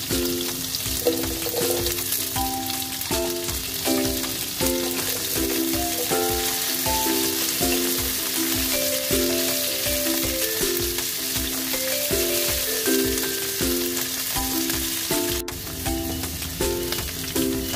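Food sizzling as it fries in a pan, a steady hiss throughout, with background music playing a melody of short notes over it.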